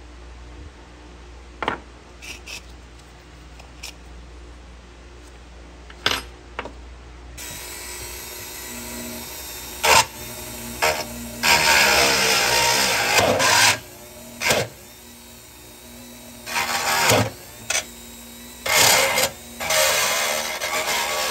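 Scattered handling clicks and taps, then a handheld power tool run in several short bursts, the longest about two seconds, each stopping abruptly.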